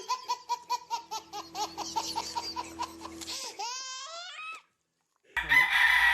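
Chickens calling: a rapid run of short notes that slowly falls in pitch, then a few rising calls. After a brief dead gap, a rooster crows loudly near the end.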